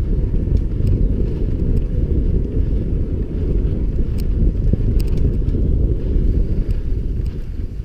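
Wind buffeting the microphone over the steady rumble of mountain bike tyres rolling on a muddy dirt trail, with scattered light clicks and rattles from the bike.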